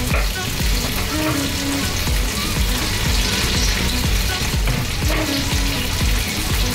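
Chicken pieces with ginger sizzling steadily in oil in a wok while they release their juices, the first stage of making tinola. Background music with a low beat runs underneath.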